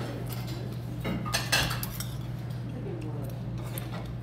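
Metal spoon clinking and scraping against a small stainless steel bowl while scooping soup, the loudest clinks about a second and a half in, over a steady low hum.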